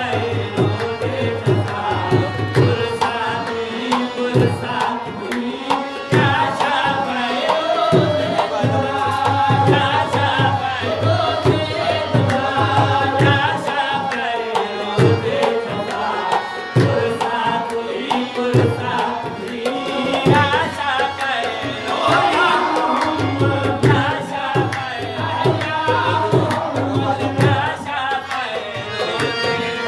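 Qawwali music: two harmoniums playing sustained chords under men singing, with a hand drum beating throughout.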